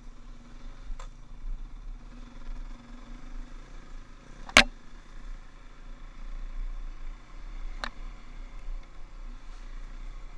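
KTM dirt bike engine running steadily while riding over rough trail, with three sharp knocks as the bike jolts over the ground. The loudest knock comes about halfway through.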